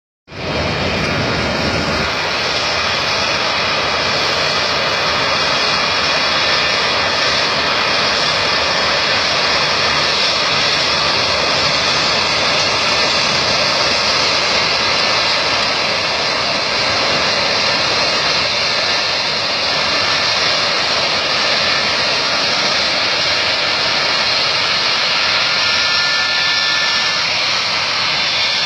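Airplane engines running loudly and steadily: a dense, even rush with a faint high whine over it.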